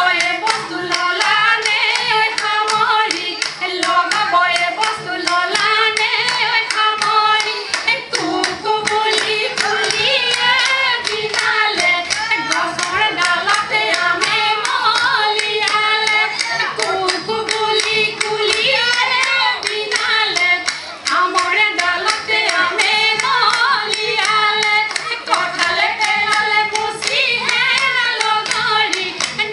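A group of women singing a Jeng Bihu song together, with rhythmic hand clapping keeping a steady beat.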